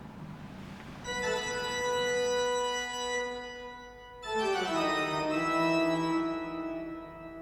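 Music: an organ-like keyboard holding one sustained chord, then sliding down into a second held chord about four seconds in.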